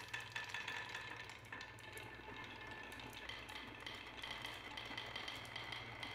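Many glass marbles rolling one after another down a wooden marble run's wavy grooved slopes, a continuous dense rattle of small clicks as they knock against the wood and each other, with a faint ringing.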